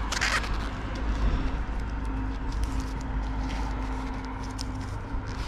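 Wind buffeting the microphone with a steady low rumble, over the rustle and crackle of gloved hands wrapping tape around a steel antenna mast. A faint steady hum runs from about two to five seconds in.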